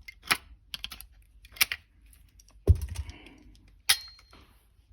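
Scattered sharp plastic clicks and taps, with one dull thump about halfway through: scissors prying at the battery compartment of a Midland HH54VP weather radio to get the AA batteries out.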